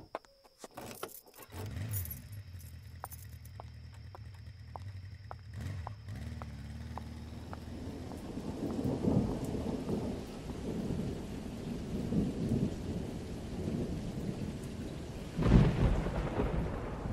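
A car door shuts, then footsteps click on pavement at a steady walking pace over a low hum. After that a low, uneven rumbling swells, with a loud surge near the end.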